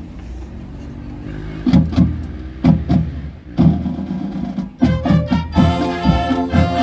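High school marching band starting its show: a series of heavy drum and percussion hits, then about five seconds in the brass and winds come in with sustained chords over the drums.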